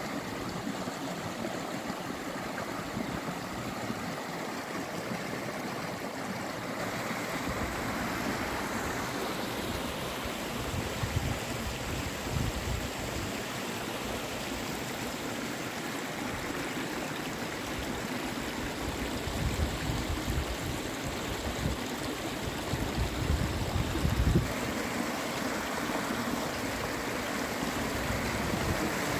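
Mountain stream rushing over rocks in a small cascade into a pool: a steady rush of water, with a few low rumbles coming and going.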